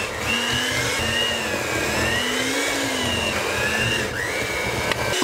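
Steady whirring of an electric kitchen appliance's motor, its pitch wavering slowly up and down.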